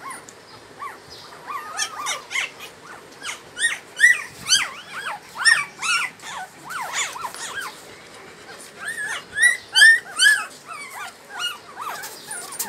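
Newborn puppies crying: many short, high, arching squeaks and whimpers, several a second, in one flurry from about two seconds in and another toward the end.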